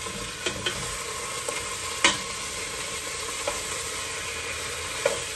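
Chicken pieces sizzling in hot fat in a pot on a gas burner, with a metal utensil clinking and scraping against the pot as pieces are lifted out. The loudest clink comes about two seconds in.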